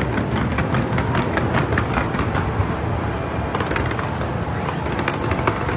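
Fireworks crackling in rapid volleys of sharp pops over a steady low rumble. The pops thin out a little after about two seconds and come thick again near the end.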